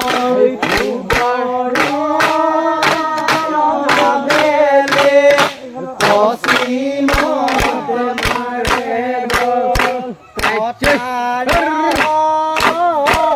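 A Moran bihu song sung by a group of voices over a steady percussion beat of about two to three strikes a second, with brief breaks in the singing about six and ten seconds in.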